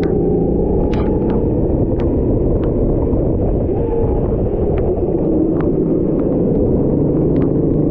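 Rental racing kart engine running on track: a loud, steady rumble with a faint engine pitch that slowly rises and falls, and scattered sharp ticks.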